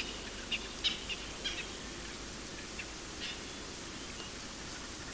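Wild birds calling in the bush: short, high chirps, several in quick succession in the first couple of seconds and a few more later, over a steady background hiss.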